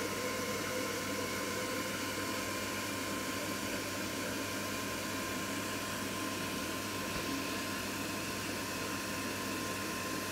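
Steady rushing noise with a low hum and a thin, steady high whine, unchanging, with no distinct events.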